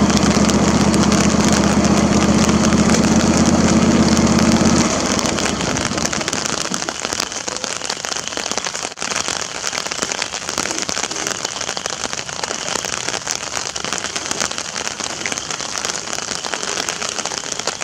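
John Deere lawn tractor engine running steadily, then shut off abruptly about five seconds in. After that only steady rain is heard, falling on an umbrella over the microphone.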